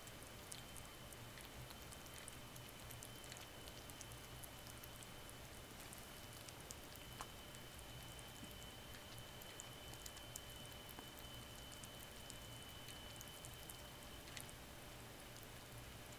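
Kitten licking the metal nozzle of a cage water bottle: faint, quick, irregular ticks over a steady hiss and a thin high whine.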